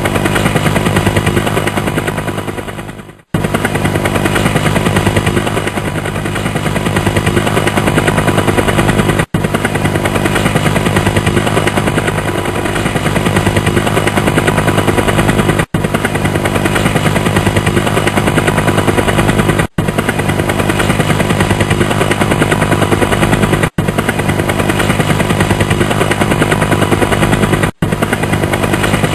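Helicopter rotor chop: a steady rapid beat of blade pulses over engine drone. It fades down about three seconds in and breaks off in short gaps several times, like joins in a looped effect.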